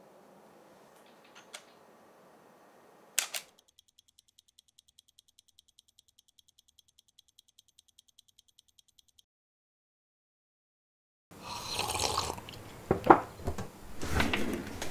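A sharp double click like a camera shutter about three seconds in, then a fast, light ticking, about four ticks a second, for some five seconds. After a short dead silence, a loud noisy sound with several sharp knocks fills the last few seconds.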